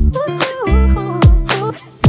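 Background music with a steady beat, deep bass notes and a gliding melody line, dropping away briefly near the end.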